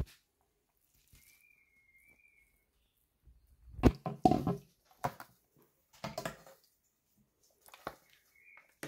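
A metal ladle knocking and scraping in a steel cooking pot: a handful of sharp clatters from about four seconds in.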